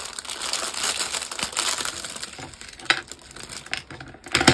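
Clear plastic bag crinkling as a small clock mechanism and its fixings are unwrapped, with a few light clicks of parts set down on a tray and a sharper knock near the end.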